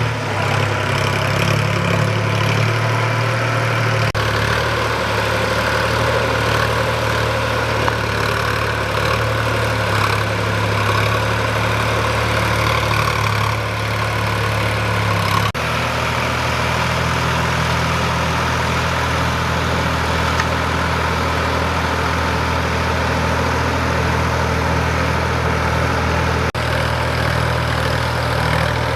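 Three-cylinder diesel engine of a Sonalika DI 745 III tractor running steadily under load. Its low note shifts abruptly twice.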